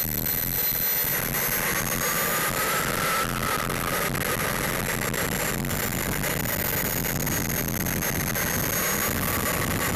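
Model jet's JetsMunt M70XBL turbine running at low taxi power, heard from a camera on the airframe: a steady high whine whose pitch rises briefly a couple of seconds in and settles back, over a low rumble.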